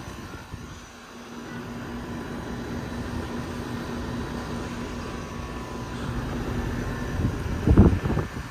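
Carrier Infinity air conditioner condenser running, with its scroll compressor humming steadily under the rush of the condenser fan, kept quiet by a sound blanket over the compressor. A brief loud rumble comes near the end.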